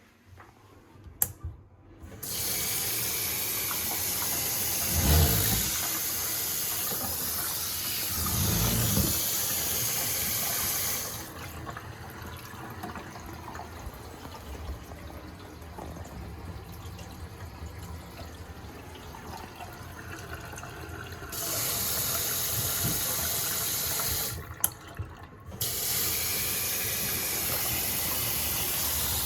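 Water running from a newly fitted Panasonic washbasin mixer faucet into the basin, run as a test after installation. The water comes on about two seconds in after a click or two; through the middle stretch the flow sounds softer and duller, then turns full again, stops briefly and comes back on near the end.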